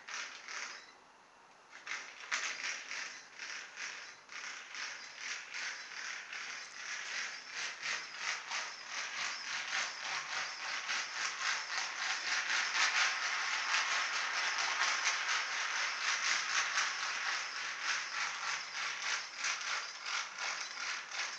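Battery-powered toy electric train running round its track, its small motor, gears and wheels making a rapid, continuous rattling clatter that starts about two seconds in. The train struggles to get round the bends, which the owner thinks may need oiling or straightening out.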